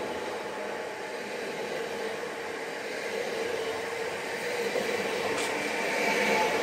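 A Koleje Dolnośląskie electric multiple unit rolling past along the platform: a steady rumble of wheels on rail with an even electric whine, and a single short click about five and a half seconds in.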